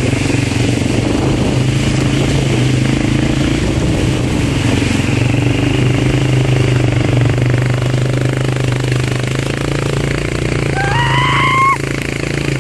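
ATV engine running steadily under way as it is ridden along a muddy track. Near the end a short rising call is heard over it.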